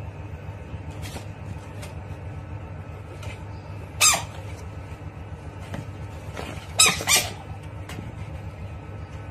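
Three short, shrill animal squawks, one about four seconds in that drops a little in pitch and two in quick succession near seven seconds, over a steady low hum.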